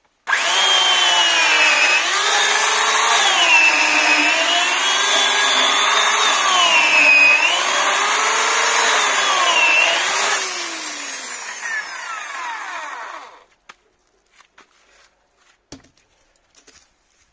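Bosch AKE 35S 1800 W electric chainsaw cutting through a cherry log: a loud motor whine that sags in pitch each time the chain bites into the wood and picks back up, for about ten seconds. It then runs lighter, winds down in pitch and stops, and a few faint knocks follow.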